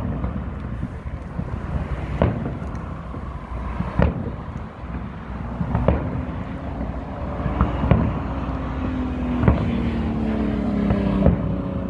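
Aerial fireworks shells bursting with sharp booms about every two seconds over a low rumble. From about halfway through, a low droning tone comes in and slowly falls in pitch.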